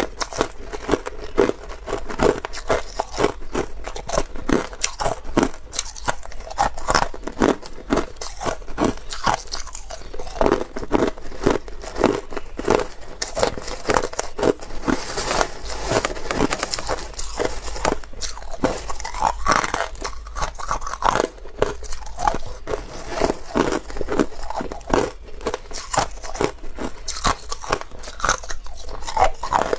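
Crushed ice being bitten and chewed: a dense, continuous run of crisp crunches.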